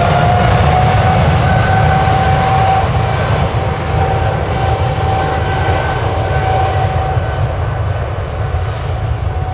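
Boeing 777 jet engines running at high power as the airliner departs: a steady whine with a fainter higher tone over a deep rumble, easing slightly in loudness near the end.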